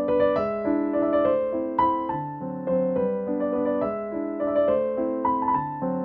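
Background piano music: a melody of evenly paced notes over held chords.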